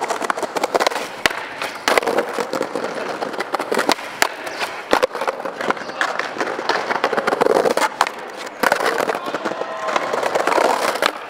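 Skateboard wheels rolling over brick paving: a steady rough rumble, with frequent irregular clacks as the wheels cross the joints between the bricks.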